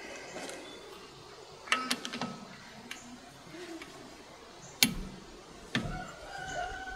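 Steel tools clanking against the brake rotor and hub: a few sharp metallic knocks, the loudest about five seconds in, as a socket on a long extension goes onto the hub nut while a pry bar holds the rotor from turning.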